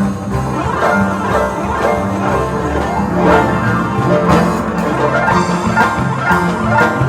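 Paraguayan harps playing a fast piece: rapid plucked notes ring over low bass notes.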